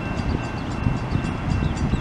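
A train rolling past: a steady low rumble of wheels on rail with irregular knocks, a thin steady high whine over it, and quick high clicks.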